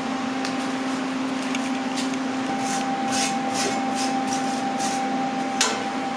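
Electric arc welding: a steady frying hiss with irregular sharp crackles and pops, as a bead is laid to tack a steel gusset onto a mower frame. A steady low hum runs underneath.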